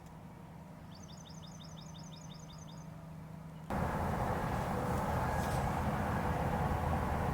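A small bird sings a quick trill of about ten short, high, down-slurred notes over a low steady hum. About halfway through, the sound cuts suddenly to a much louder, steady rushing noise.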